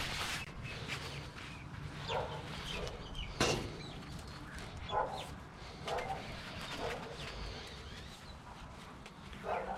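Bare copper wire being pulled by hand out of an old cable's plastic insulation, with short squeaks and rubs roughly once a second and a sharper click about three and a half seconds in.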